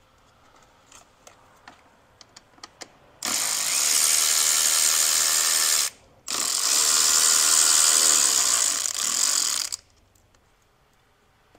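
Cordless electric ratchet running in two long spins, about two and a half and three and a half seconds, with a short break between, working a fastener in the engine bay. A few light handling clicks come before the first spin.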